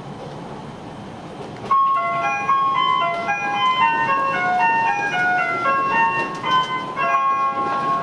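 JR Shikoku onboard chime playing a short melody of clear bell-like notes over the cabin speakers, starting about two seconds in and ending near the end, as the lead-in to a train announcement. Under it runs the steady cabin noise of the 185-series diesel railcar.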